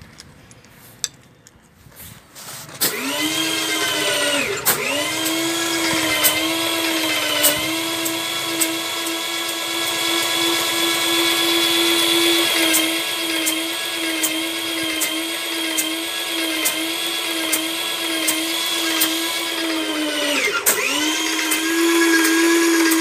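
Electric airless paint sprayer running while spraying paint onto a wall: its pump motor makes a steady high-pitched whine with a regular light clicking. The whine starts about three seconds in and sags briefly in pitch twice, soon after starting and again near the end.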